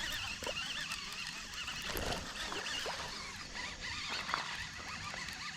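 Birds calling and warbling steadily in the background, with a brief low thump about two seconds in.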